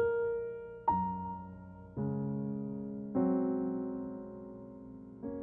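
Background music: slow, gentle piano chords, five struck in turn, each left to ring and fade before the next.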